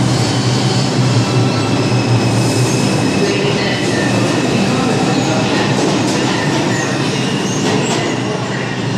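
New York City Subway R142 train pulling out of an underground station and picking up speed: a steady loud rumble of motors and wheels on the rails, with thin high whines and wheel squeal over it.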